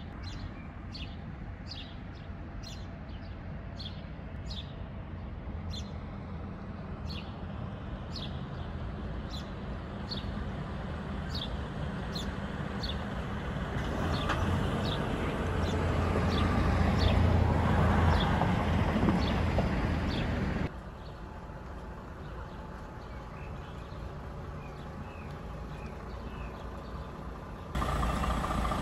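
A DAF semi-truck's diesel engine growing louder as it drives past, loudest about two-thirds of the way through, over a bird chirping a short note about twice a second. Near the end the truck's engine runs close by and louder as it turns in.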